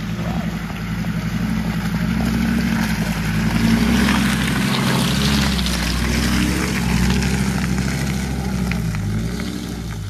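Ford Ranger pickup driving past on a muddy off-road trail: the engine runs steadily under low throttle, growing louder as the truck passes close by about halfway through and fading as it moves away, with tyre noise from the muddy track loudest as it goes by.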